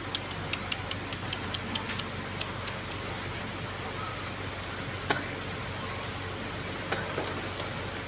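Steady rain hiss, with a quick run of sharp ticks over the first few seconds and two more single ticks about five and seven seconds in.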